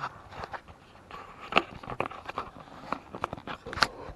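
Handling noise from a hand-held camera being moved about: scattered light clicks and knocks over a faint rustle, mostly from about a second and a half in.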